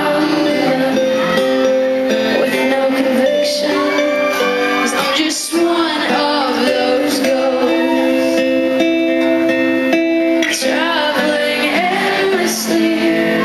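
Live acoustic performance: strummed acoustic guitar with a female lead vocal singing the song.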